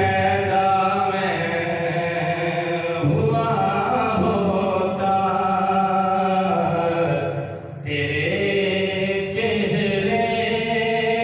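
A man's solo voice reciting an Urdu naat into a microphone, unaccompanied, in long held notes that bend and slide. A short pause for breath comes about eight seconds in, then the singing goes on.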